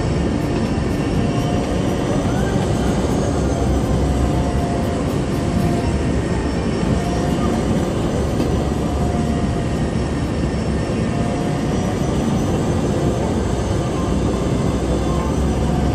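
Engine and propeller of a small high-wing propeller plane running steadily as it taxis, heard from inside the cabin, with a faint whine that wavers slightly in pitch.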